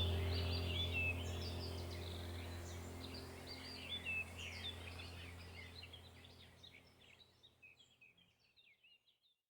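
Birds chirping and singing over a steady low hum, the whole fading out to silence about seven seconds in.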